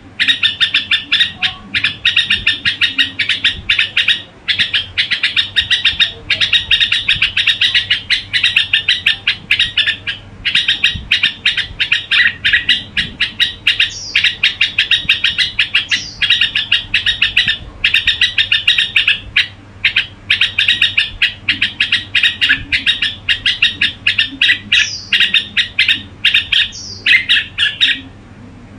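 Red-whiskered bulbul calling in long runs of rapid, chattering repeated notes, each run a second or two long with short pauses between, and a few brief higher sliding notes mixed in toward the second half.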